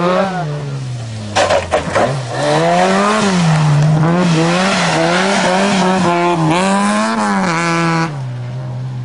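Historic rally car engine at full load on a gravel stage, revs climbing and dropping repeatedly as it shifts through the gears, with tyre and gravel noise. A few sharp cracks come about a second and a half in, and the engine drops to a lower, steady note near the end.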